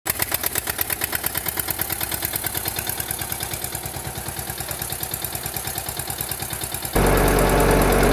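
Tractor engine idling with a steady chug of about six beats a second. About seven seconds in, it jumps louder as the engine revs up.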